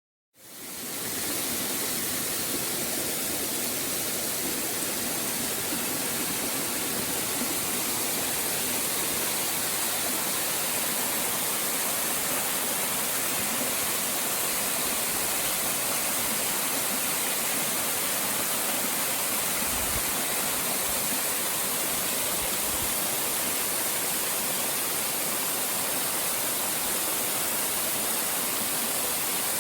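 Waterfall pouring, a steady rushing of water that rises out of silence just after the start and holds even throughout.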